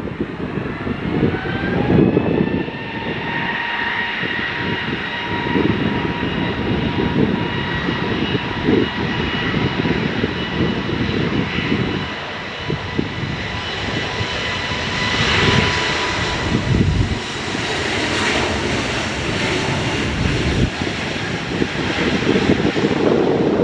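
Wizz Air jet airliner's engines spooling up for takeoff: a whine rises in pitch over the first few seconds, then holds steady while the engine noise grows louder and peaks past the middle. Wind buffets the microphone throughout.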